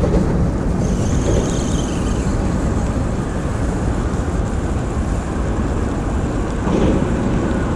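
Steady rushing outdoor noise of rain and river water, heavy and rumbling at the low end.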